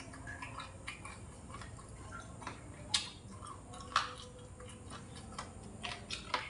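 Close-up chewing of fried pork rib with crunchy cartilage: a run of small crackling clicks, with two louder crunches about a second apart midway.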